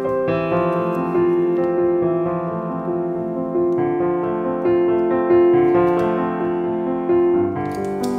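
Background music: a piano tune playing a melody over accompanying notes, with a few light clicks near the end.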